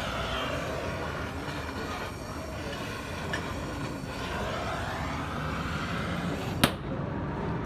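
Gas blowtorch flame hissing steadily as it heats a motorcycle exhaust pipe joint, with one sharp click near the end.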